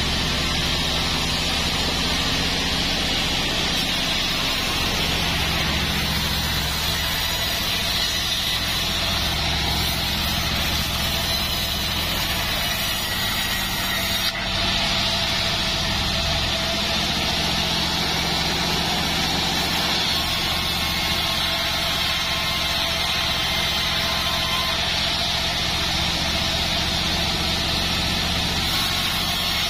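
Band sawmill running with a steady drone as its blade saws through a joar wood log, with a brief break about halfway through.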